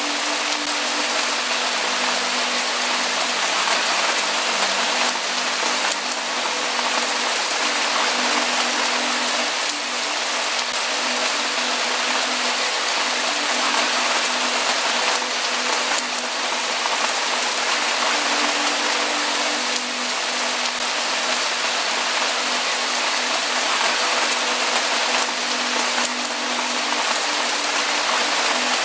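Steady heavy rainfall, an even unbroken hiss of rain, with a faint low hum coming and going beneath it.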